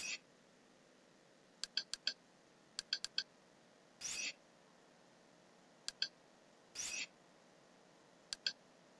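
Kodi's menu sounds during on-screen navigation: short pitched clicks as the cursor steps between items, some in quick runs of two to four, and a longer swish each time a new screen or dialog opens, at the start, about four seconds in and about seven seconds in.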